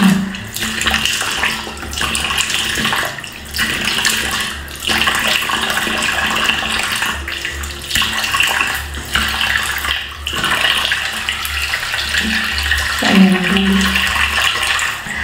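Tap water running and splashing as a face is rinsed off with handfuls of water after a gel cleanser, with a few brief breaks in the flow.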